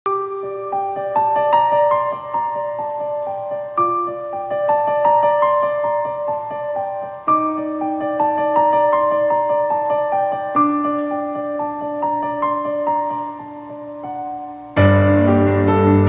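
Piano playing a song's intro: a repeating phrase of single notes over held lower notes, starting over about every three and a half seconds. Near the end a fuller band sound with a loud deep bass comes in.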